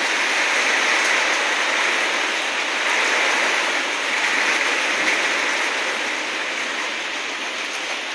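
Heavy rain pouring down in a steady, dense hiss, some of it blowing in through an open door.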